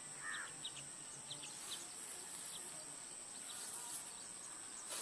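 Insects droning steadily on a thin high tone, with short faint chirps scattered over it.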